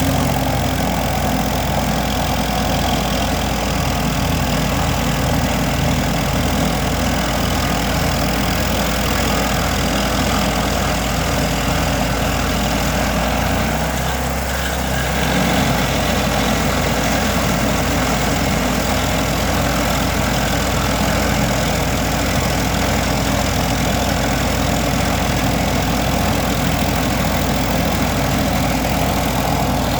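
Vermeer SC382 stump grinder's 37 hp engine running steadily, with a brief change in its drone about fourteen seconds in.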